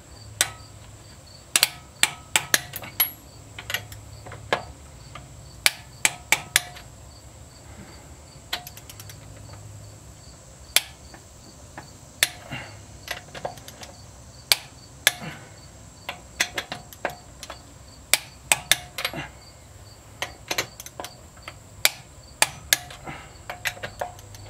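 Ratchet wrench clicking in quick bursts of several clicks as lug nuts are spun and snugged onto a wheel hub, with a socket clinking against the nuts. Insects trill steadily behind.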